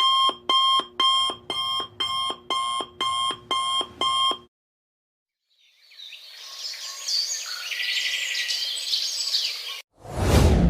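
Electronic alarm clock beeping, about two short beeps a second, for roughly four and a half seconds. After a short gap a separate, noisier chirping effect fades in, and near the end a sudden loud whoosh starts.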